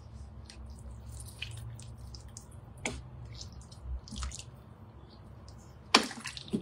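Wooden spoon stirring soup in a stainless steel cooker bowl: liquid sloshing and dripping, with scattered light knocks of the spoon against the bowl and a sharper knock near the end.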